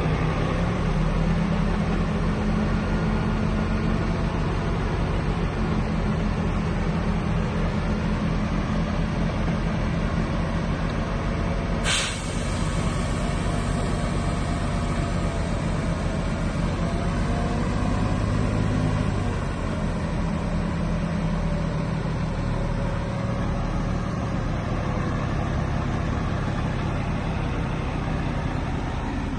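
Heavy diesel engine of earthmoving machinery (a bulldozer working with dump trucks) running steadily under load. A brief sharp noise comes near the middle, and the engine note drops about two-thirds of the way through.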